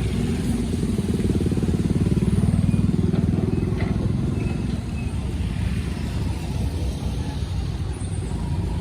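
Small excavator's diesel engine working, a steady low chugging that rises in revs from about two seconds in and eases back after about five seconds. A single sharp clank about four seconds in.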